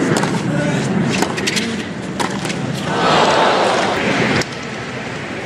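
Tennis racket strikes on the ball, a few sharp pops about a second apart, over crowd murmur, then a burst of crowd applause and cheering about three seconds in that cuts off suddenly.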